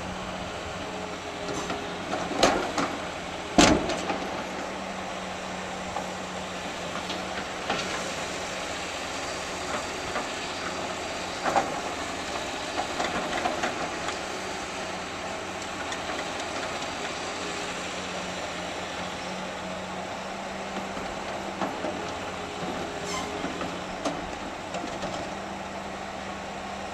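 Demolition machinery engine running steadily with a constant hum, while concrete rubble is handled. There are sharp bangs and clanks of broken slab, the loudest two a little over a second apart about two and a half seconds in, and lighter knocks scattered through the rest.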